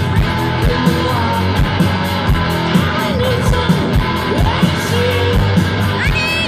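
Live rock band playing at full volume through a festival PA, heard from within the audience: distorted electric guitars, bass and a steady drum beat, with a sung vocal. A high rising glide cuts through near the end.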